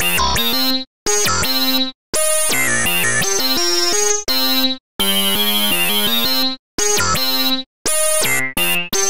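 Phase Monkey phase-distortion synthesizer playing its 'Wowza Bass' factory preset: a sequenced pattern of bright, buzzy notes, each cut off sharply, with short gaps between them.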